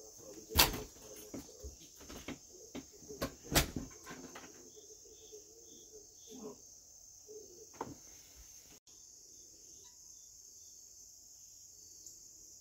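Steady high-pitched insect chorus, crickets, with several sharp knocks in the first few seconds, the loudest about half a second and about three and a half seconds in.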